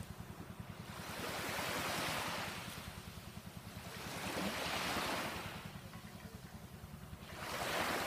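Small, gentle waves washing up on the shore of a calm sea, three soft swells of surf about three seconds apart, over a low, fast, steady throb.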